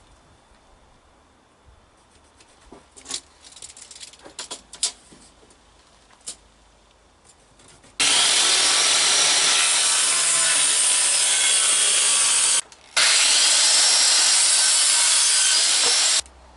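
Light knocks and clicks, then a power tool working wood. It runs loud and steady for about eight seconds, with one brief stop partway through.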